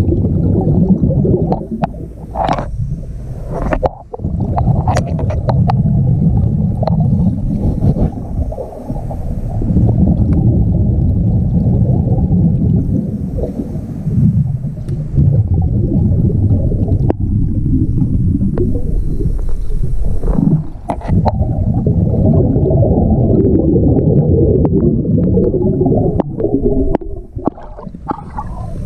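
Muffled underwater rumble and bubbling from a scuba diver's regulator, heard through a camera's waterproof housing. It swells and dips every few seconds, with scattered sharp clicks.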